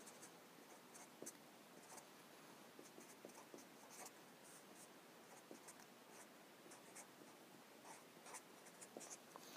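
Faint scratching of a felt-tip marker writing on paper, in many short, separate strokes.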